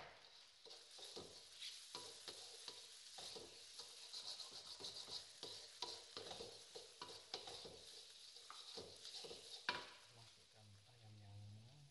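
Wooden spatula stirring and scraping stir-fry ingredients around an aluminium wok in a run of quick scrapes and taps, over a light sizzle of frying. A sharper knock of the spatula against the wok comes near the end.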